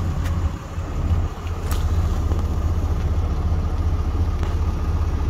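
A 2022 Ram 2500's 6.7-litre Cummins turbo-diesel straight-six idling steadily, heard through the open driver's door, with a faint click or two in the first couple of seconds.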